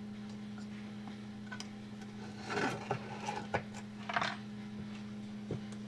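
A few short scrapes and light metal clicks as a straight edge pries at a DC-DC converter's metal housing to break its RTV seal, over a steady low hum.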